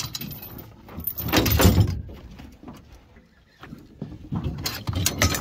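Irregular knocks, bumps and rustling as an angler moves about a small aluminium boat and reaches for the landing net. It is loudest about a second and a half in, quieter in the middle, and busy again near the end.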